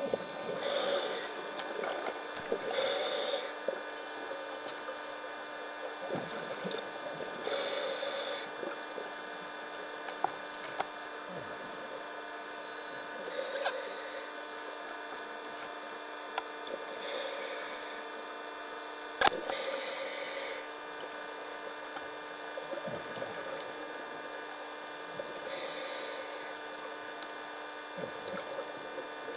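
Scuba diver breathing through a regulator underwater: bursts of hissing and bubbling about a second long, a few seconds apart, over a steady hum. One sharp click about two thirds of the way through.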